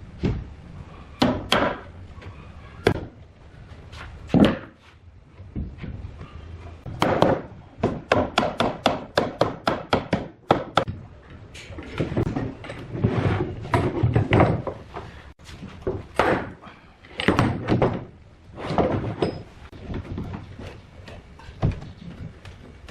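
Repeated blows striking wood, with scattered single knocks and a quick run of about five strikes a second partway through, in the manner of joinery work on timber.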